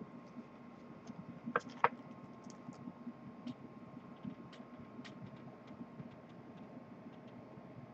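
Faint handling of a paper booklet held in the hands: scattered light clicks and ticks, with two sharper clicks about a second and a half in, over a low steady room hum.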